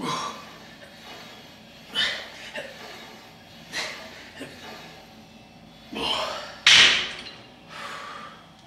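Sharp, forceful exhales, one with each rep of a cable tricep pushdown, coming every second or two; the loudest comes near the end of the set.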